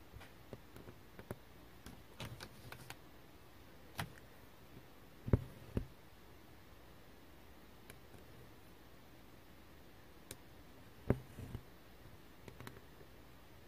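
Cross-stitch needle piercing taut black 14-count fabric and embroidery floss pulled through it: a scattered series of sharp taps and soft pops, the loudest about five and eleven seconds in.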